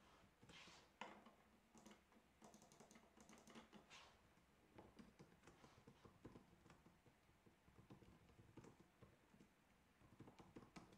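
Faint computer keyboard typing: irregular keystrokes tapping out a line of text.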